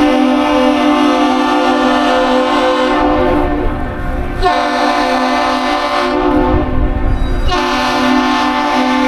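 A Great Lakes freighter's deep horn sounding one long blast followed by two shorter ones: the one-long-two-short captain's salute.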